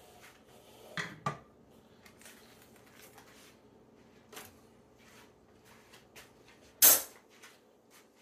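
Kitchen handling sounds on a countertop: a mixing bowl, utensils and a foil wrapper being set down and moved, with two knocks about a second in, scattered light clicks and rustles, and one sharp clatter near the end.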